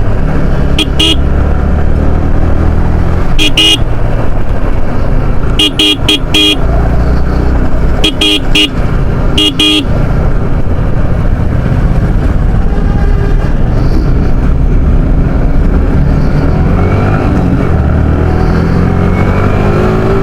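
Yamaha R15 single-cylinder motorcycle riding in heavy traffic, with steady engine and road noise. Short horn beeps sound in pairs and clusters through the first ten seconds. Near the end the engine pitch rises as the bike accelerates.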